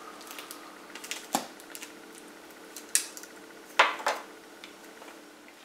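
Books being handled on a table: hardcover books set down and picked up, with scattered light taps and knocks, the sharpest about a second and a half, three and four seconds in, over a faint steady hum.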